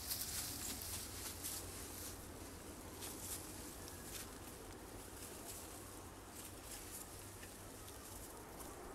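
Knife blade cutting into a hazel stick: a run of faint short scrapes as wood is shaved away, coming thickly over the first few seconds and more sparsely after.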